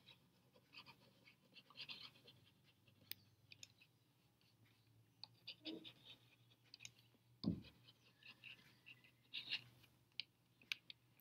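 Near silence broken by faint stylus taps and scratches on a tablet screen as words are handwritten, with one short low thump about two-thirds of the way through.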